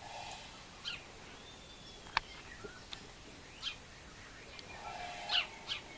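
Sparrow chirping: about five short, sharp single chirps spaced a second or so apart, the loudest near the end.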